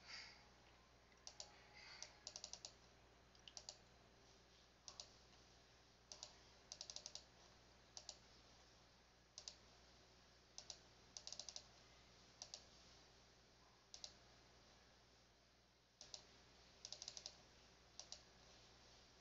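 Computer mouse button clicking, some single clicks and some quick runs of three or four in a row, over a faint steady low hum.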